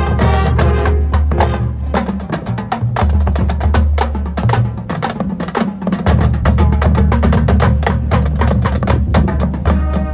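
High school marching band playing, with quick, dense percussion strokes over long-held low notes and pitched ensemble parts.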